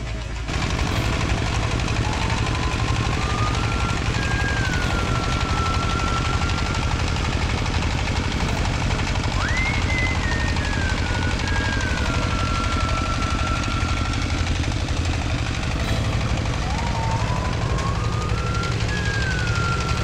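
Rice threshing machine and its engine running steadily with a fast pulsing beat. A faint thin tone slides up and down three times over it.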